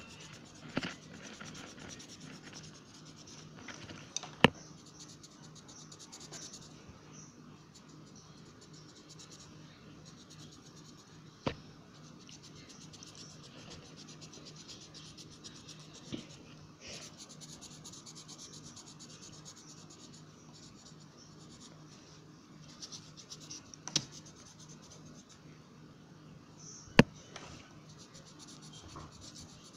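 A coloring pen scratching and rubbing on paper in stretches of back-and-forth strokes as a drawing is coloured in. A few sharp clicks or taps stand out now and then, the loudest sounds.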